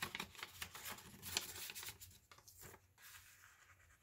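Paper rustling and crinkling as a paper popcorn-bag pocket and a tag in a junk journal are handled, with a busy run of quick crackles in the first two seconds that thins out after.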